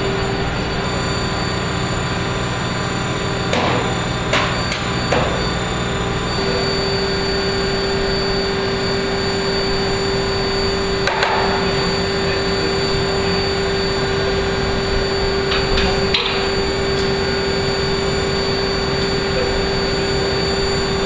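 Steady machinery hum with a constant whine, and a few short metallic clicks and knocks of hand tools on a bomb's fittings.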